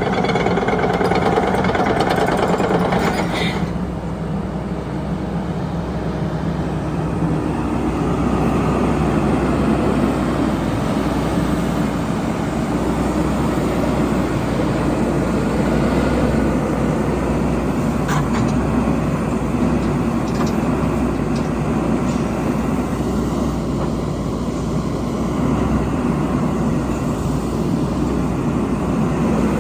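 Excavator's diesel engine running steadily, its note dropping slightly about three and a half seconds in.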